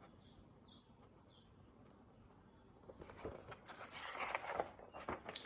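Paper rustling from a picture book's pages being handled and turned, building up over the last two seconds after a nearly silent start with a few faint high chirps.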